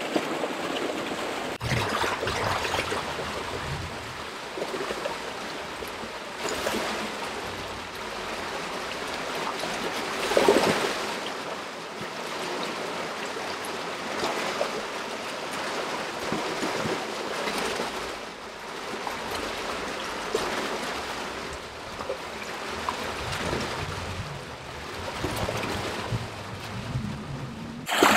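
Water rushing and splashing through the openings and channels of a concrete hatchery fish ladder: a steady churning noise that swells and eases, louder about ten seconds in.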